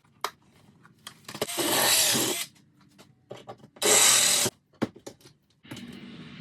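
Shop tool work: two loud bursts of harsh rasping noise, each about a second long, then a quieter, steadier stretch near the end, with scattered clicks between.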